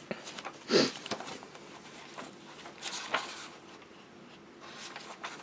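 Paper pages of a notebook being turned by hand: a few short papery rustles and flaps, the loudest about a second in.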